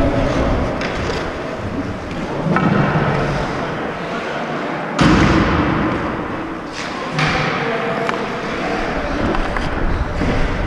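Ice hockey skates scraping and gliding on the ice, with a sharp thud about five seconds in, the loudest sound here.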